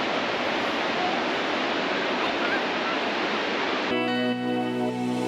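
Steady rush of sea surf on the beach, which cuts off abruptly about four seconds in as background music with sustained tones begins.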